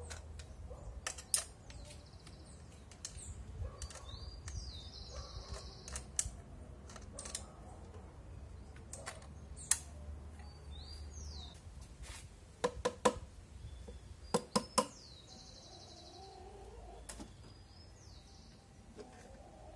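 Scattered sharp metallic clicks and clinks of an 11 mm wrench working the valve cover nuts, washers and seals off a Renault 19 engine, several coming in quick pairs about two thirds of the way through. Birds chirp in the background.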